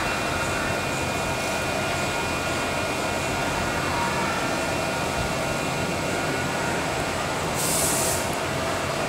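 Steady mechanical background noise with a few faint steady tones running through it, and a brief high hiss a little before the end.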